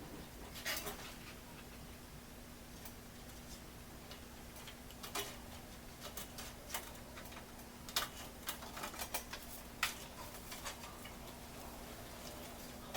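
Irregular light clicks and taps from computer parts being handled during a PC build, clustered in the second half, over a steady faint hum.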